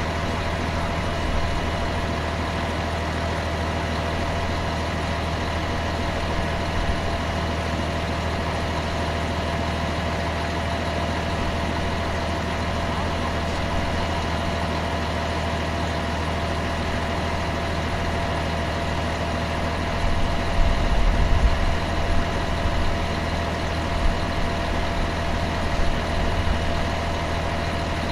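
Heavy truck engine idling steadily, with a rougher low rumble from about twenty seconds in.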